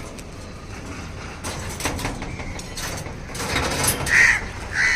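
Crows cawing: two short, loud caws near the end, after some brief rustling noises.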